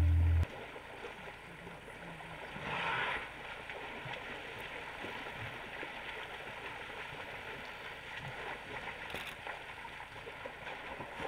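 Music cuts off about half a second in, leaving water splashing and trickling as African elephants drink in a river, water pouring back down from their raised trunks, with a louder splash about three seconds in.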